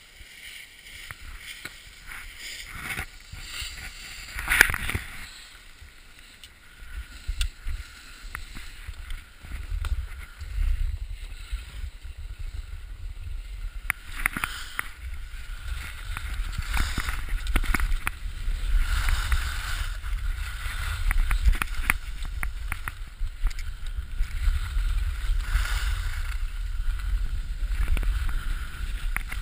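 Skis scraping and hissing over packed snow on a downhill run, with wind rumble on the microphone that builds and grows louder after the first several seconds as speed picks up. A brief louder sound about four and a half seconds in.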